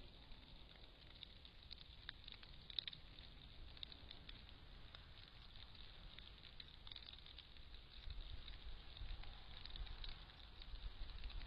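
Near silence: the faint steady hiss of a trail camera's microphone, with scattered faint ticks and crackles, and a low rumble rising in the last few seconds.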